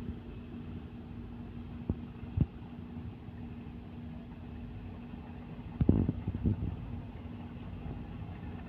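Steady low drone of a river passenger launch's engine, with one held hum. A few sharp thumps cut in: two about two seconds in, half a second apart, then a louder cluster around six seconds.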